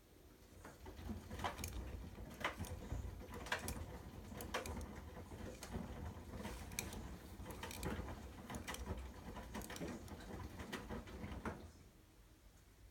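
Front-loading washing machine drum tumbling wet laundry on the rinse cycle: a low rumble with a slosh and thump about once a second as the clothes drop. It stops abruptly about a second before the end as the drum comes to rest.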